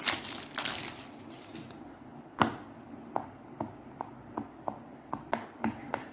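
Plastic packaging crinkling for the first second or so. After a pause comes a series of about ten short, sharp pops, two or three a second, the first the loudest: the silicone bubbles of a pop it fidget toy being pressed.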